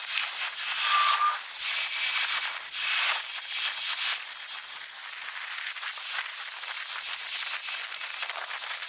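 Airport noise sped up fourfold: a steady high-pitched hiss of a landing jet airliner's engines and wind, with a brief tone about a second in.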